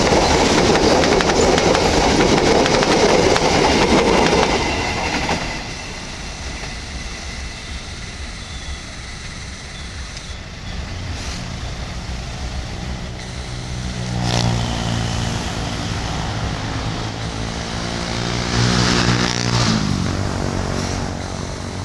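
Passenger train coaches passing close, wheels rumbling and clattering on the rails. After about five seconds this drops to a quieter, steadier train rumble, with a low engine drone swelling twice in the second half.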